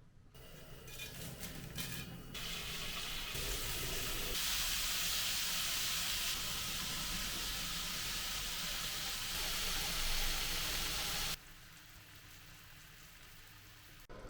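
Breaded chicken cutlet frying in hot oil: a steady sizzle that builds over the first couple of seconds and cuts off suddenly about eleven seconds in.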